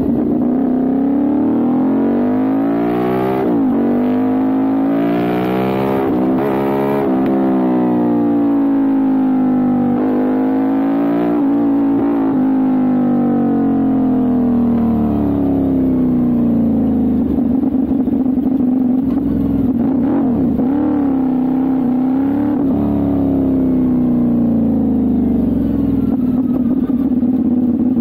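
Exhaust note of a CFMOTO 450SR's parallel-twin engine, picked up close to the muffler as the bike is ridden. The revs climb and drop back several times.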